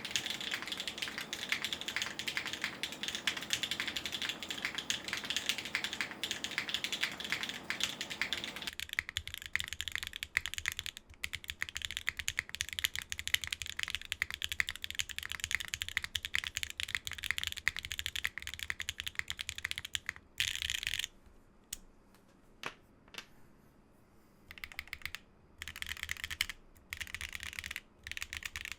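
Geonworks F1-8K mechanical keyboard, with Geon Raw Zero switches on an aluminium plate and PBT keycaps, being typed on fast and continuously. In the last third the typing breaks into short bursts with pauses of a second or two between them.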